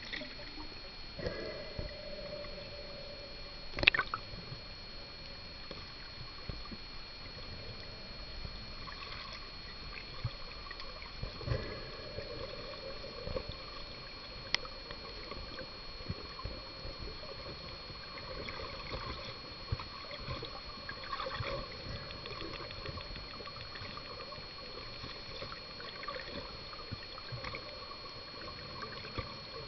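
Muffled underwater sound through a submerged camera: water gurgling and sloshing against the housing, with scattered small clicks and knocks, the loudest about four seconds in. Two faint steady high tones run underneath.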